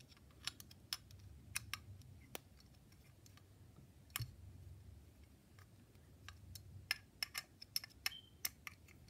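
Faint, scattered metallic clicks of a hex driver turning socket-head bolts into an electric-skateboard motor mount plate, the clicks coming more often in the last few seconds.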